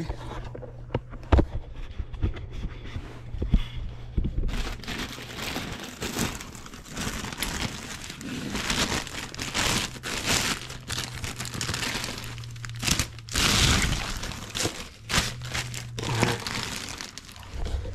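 A packaging bag crinkling and rustling as a new drive axle is pulled out of it. There is a sharp knock about a second and a half in, and the crinkling grows dense from about four seconds in.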